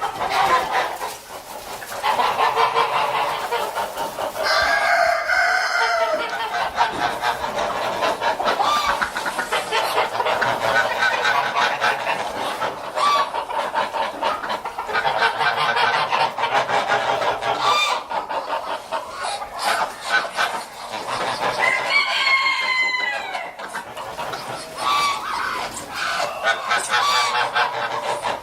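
A flock of geese calling continuously, many short overlapping cackles and honks, with louder drawn-out honks about five seconds in and again near the end.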